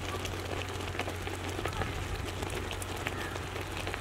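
Pot of basmati rice cooking in water, giving a steady fizzing crackle of small scattered pops over a constant low hum.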